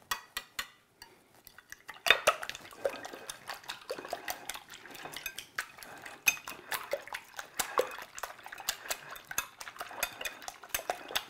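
Fork beating raw eggs in a glass bowl: a few light taps, then from about two seconds in a fast, steady run of clinks and scrapes of metal on glass.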